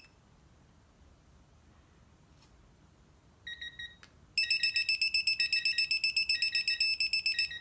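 Digital torque wrench beeping as it is pulled to its 80 ft-lb setting: a short beep about three and a half seconds in, then rapid beeping, about ten a second, for about three seconds, signalling that the preset torque is being reached.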